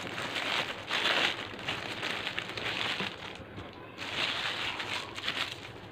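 Paper food wrapping crinkling and rustling as it is peeled off a portion of rice by hand, in several bursts with short pauses between.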